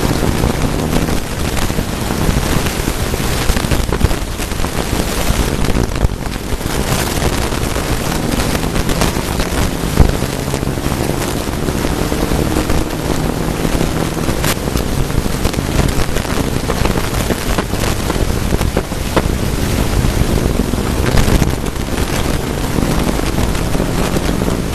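Mitsubishi Lancer Evo II rally car's turbocharged four-cylinder engine driven hard on a gravel stage, heard inside the cabin, its note climbing and dropping as it goes through the gears. Gravel and road noise hiss throughout, with occasional sharp knocks from stones striking the car, the loudest about ten seconds in.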